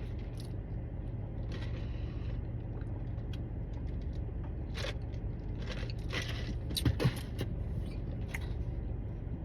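A person eating a burger: scattered small clicks and rustles of chewing and the wrapper, busiest in the middle and loudest about seven seconds in, over a steady low rumble.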